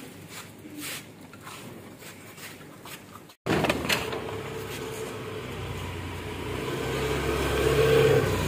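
Faint scattered clicks, then, after a brief dropout, a motor scooter's engine approaching and passing, its steady hum growing loudest near the end.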